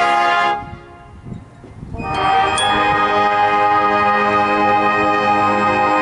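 High school marching band brass and winds holding a loud chord that cuts off about half a second in. After a pause of about a second and a half the full band comes back in with sustained chords.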